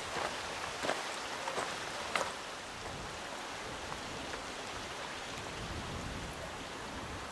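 Footsteps crunching and clicking on loose talus rock for the first two seconds or so, then a steady soft hiss.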